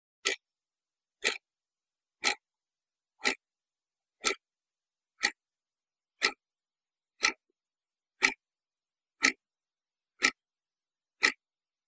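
A clock ticking: twelve sharp, evenly spaced ticks, one each second, with silence in between.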